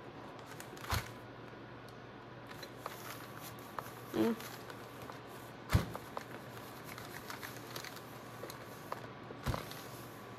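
A clothes iron sliding over crinkled packing paper on a towel, melting wax flakes into it: faint paper rustling, with three soft knocks, about a second in, near the middle and near the end.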